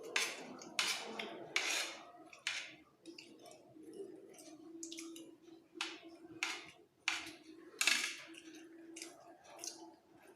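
A small spoon scraping and clinking against a plate while eating fried rice, about a dozen short, irregular strokes.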